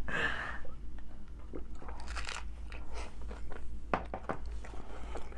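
A crunchy hard-shell taco being bitten and chewed, giving a run of irregular crisp crunches.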